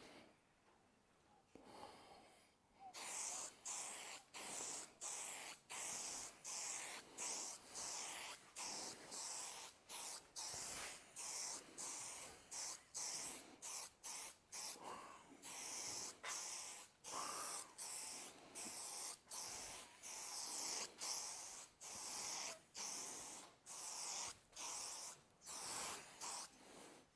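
Aerosol spray-paint can hissing in short, repeated spray passes, about two bursts a second, starting about three seconds in.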